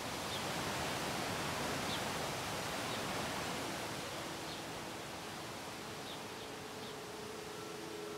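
Outdoor ambience: an even hiss with a few faint, short high chirps scattered through it. From about halfway, soft held music tones fade in beneath it and grow stronger near the end.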